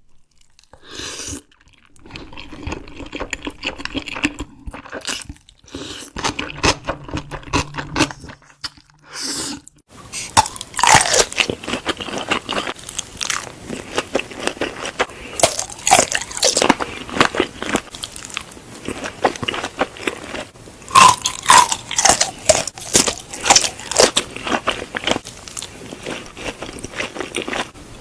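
Close-miked eating: bites and chewing of crunchy food. It is quieter and broken by brief silences for the first ten seconds or so, then loud, crisp crunches follow one after another.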